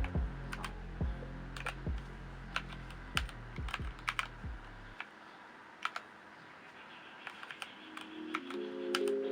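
Keystrokes on a Blitzwolf BW-KB1 mechanical keyboard with Gateron brown switches, typed in short irregular runs of clicks.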